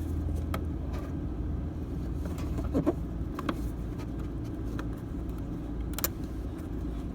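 A steady low hum, with a few light clicks and taps from a plastic water-line fitting being handled and lined up on a toilet valve.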